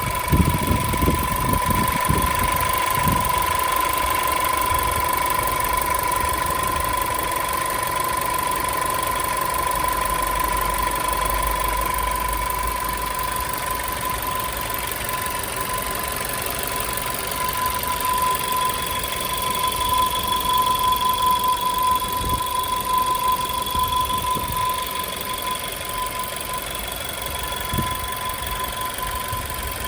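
VW Tiguan 1.4 TSI (CZDA) engine idling warm with a loud, steady whistle over the idle. A fainter, higher whistle joins about two-thirds of the way through.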